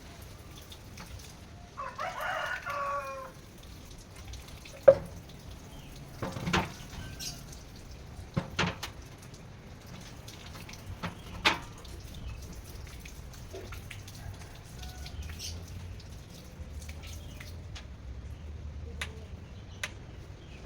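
A rooster crows once, briefly, about two seconds in. It is followed by a handful of sharp knocks or clicks, with the loudest one coming about five seconds in.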